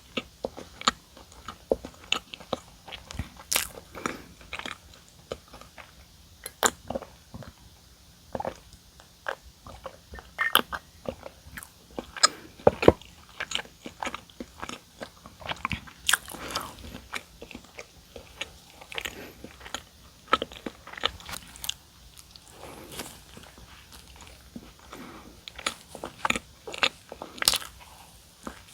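Close-miked eating of donuts: bites and chewing, with many irregular sharp crunches and mouth clicks.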